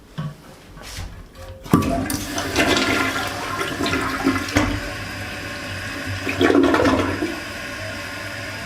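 New Mansfield toilet being flushed: a few light clicks, then a sudden rush of water about two seconds in, with a second surge near the end before it settles into the tank refilling. A short flush: only about half the tank drains before the flapper resets.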